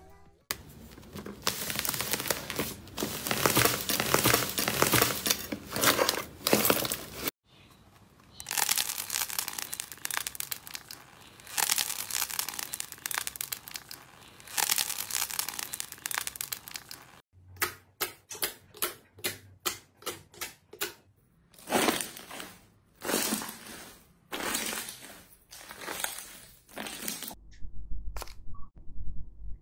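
Close-up crackling and crunching of slime and squishy stress toys squeezed by hand. First comes a dense run of crackles from foam-bead slime kneaded in a bowl, then the crunch of a large stress ball with a crumbly skin. After that there is a series of separate squeezes, two or three a second, and it goes quiet near the end.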